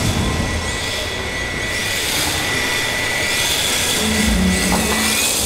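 Electric motor of a 1:10 scale RC drift truck whining as it drifts, rising in pitch twice, about two and four seconds in, over a steady high tone.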